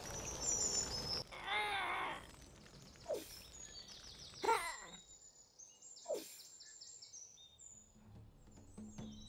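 Nature ambience with birds chirping: short high chirps throughout, a longer warbling call about a second and a half in, and a few calls that fall sharply in pitch.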